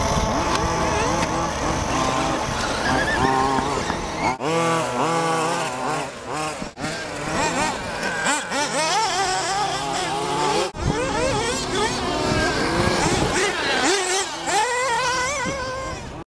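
Brushless electric motor and drivetrain of an HPI Bullet ST Flux RC stadium truck whining, its pitch rising and falling over and over as the throttle is worked.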